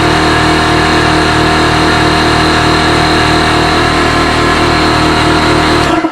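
Ridgid 6-gallon pancake air compressor running loud and steady as it fills its tank, its motor and pump pulsing evenly. It cuts off suddenly near the end, as the tank reaches full pressure of about 90 psi.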